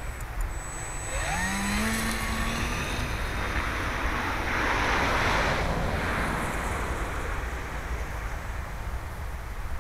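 Multiplex FunCub RC model plane's electric motor and propeller spooling up with a quickly rising whine about a second in, then a louder propeller buzz that swells as the plane takes off and passes at about five seconds, fading as it climbs away. A steady low rumble runs underneath.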